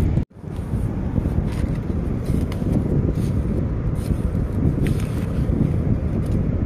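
Steady low rumble of wind buffeting the microphone on an open sand flat, with a few faint scrapes of a small metal hand trowel digging into wet sand. The sound drops out for an instant near the start.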